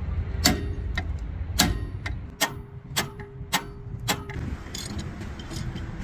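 Hammer striking steel on a bulldozer final drive, seven sharp blows about half a second apart, some leaving a short metallic ring. The blows stop about four seconds in.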